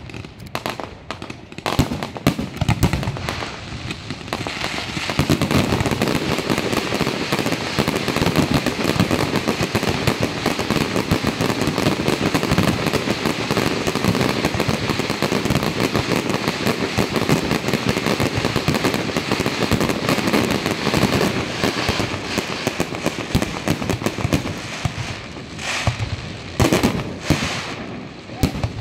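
Fireworks display: aerial shells bursting, first as separate bangs, then after a few seconds a dense, unbroken barrage of rapid bangs and crackling that thins out again to a few loud single bangs near the end.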